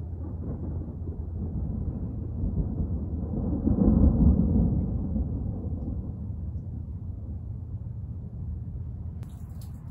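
Thunder rumbling low, swelling to its loudest about four seconds in and then slowly dying away.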